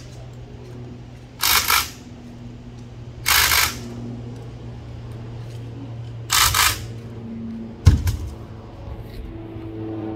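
Compressed-air blow gun fired in three short blasts, about two seconds apart, blowing out an oil-soaked servo motor. A single sharp knock near eight seconds in, over a steady low hum.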